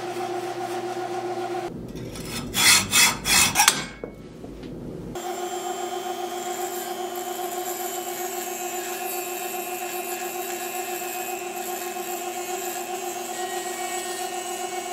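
Metal lathe running steadily with a constant hum. About two seconds in come a few loud scratchy strokes, sandpaper worked against the spinning steel pin. From about five seconds in, a Dremel rotary tool adds a high whine as its grinding stone polishes the turning pin.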